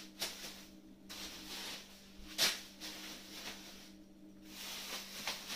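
Thin plastic bags of dry pasta rustling and crinkling as they are handled, with a few sharper crackles, over a steady low hum.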